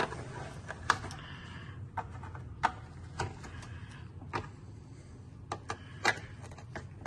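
Irregular sharp clicks and taps of a screwdriver working at the plastic engine cover, hoses and fittings in a car's engine bay, over a steady low hum.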